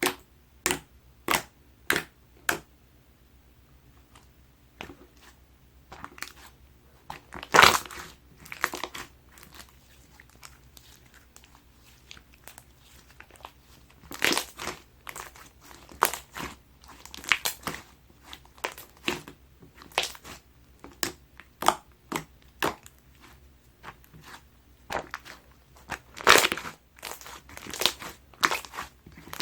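Crunchy green sherbet slime being squished and pressed by hand. It begins with a run of sharp pops about half a second apart, then turns to irregular crackling and crunching.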